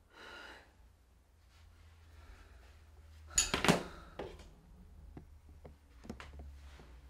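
Small handling noises: a soft breath near the start, a louder rustle about halfway, then several light knocks and taps as a tablet is set down on a wooden table and a metal-framed chair is handled.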